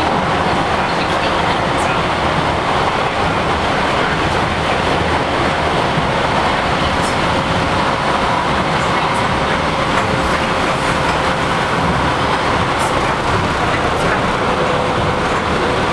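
Light-rail car running at speed, heard from inside the cabin: a steady rumble with a thin, steady whine and a few faint clicks.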